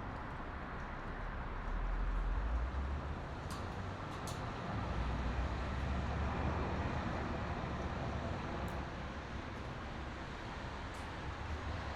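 Steady highway traffic noise, with the low rumble of passing vehicles swelling about two seconds in and again a few seconds later.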